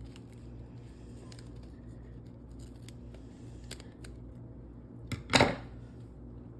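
Scissors cutting, with faint handling clicks and rustle before; two sharp snips about five seconds in, the second much the loudest.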